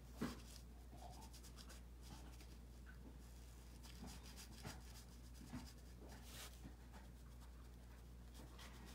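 Faint scratching strokes of a Sakura Koi brush marker's tip coloring on paper, with one light knock about a quarter second in.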